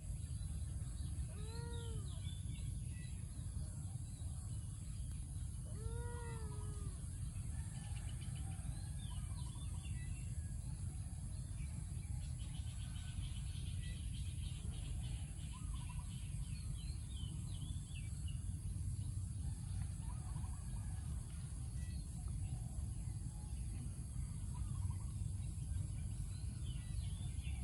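A kitten meows twice, about four seconds apart, each meow short and rising then falling. Under it runs a steady low rumble, and later come faint high chirps and a buzzing trill.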